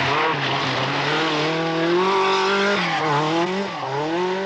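Peugeot 205 Turbo 16 rally car's turbocharged four-cylinder engine revving hard, its pitch dipping and climbing back twice in the last second and a half.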